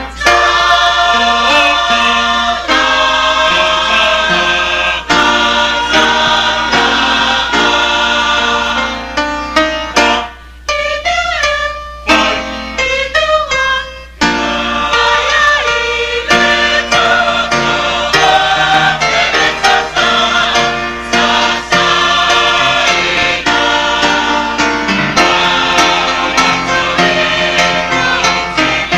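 Samoan mixed choir singing in parts, men's and women's voices together. About ten seconds in it drops to a softer, thinner passage for about four seconds, then the full choir comes back in.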